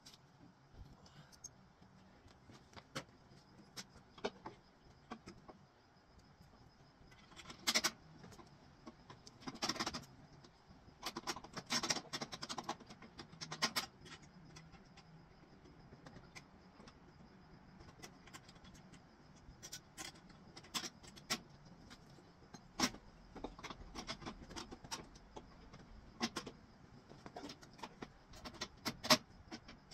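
Irregular metallic clinks, clicks and rattles of hand tools and hardware as parts are handled and fitted at a winch control box behind a truck's front bumper, coming in short clusters.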